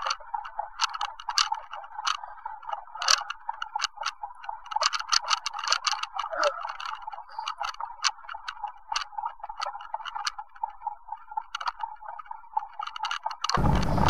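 Irregular clicking and rattling from a moving bicycle and its mounted camera, sounding muffled and thin with no low end. About half a second before the end, steady wind noise on the microphone comes in suddenly.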